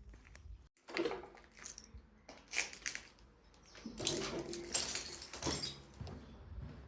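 Footsteps crunching and scraping over debris in irregular bursts, loudest about a second in and again from about four to six seconds in.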